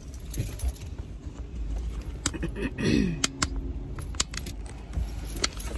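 A bunch of keys on a keyring jangling and clicking, with handling knocks and rustling as someone gathers things to get out of a car. A brief murmur of a voice comes about three seconds in.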